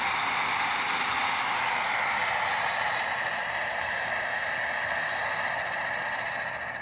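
Bright Star Fire Roulette rotating firework fountain spraying sparks with a steady rushing hiss and a whistling tone that sinks slightly in pitch, starting to die away near the end as the fountain burns out.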